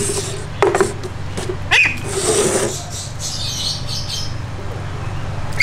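Young duck giving two short, falling calls while being shampooed by hand, with bursts of splashing and wet rubbing in its soapy feathers in the middle, over a low steady hum.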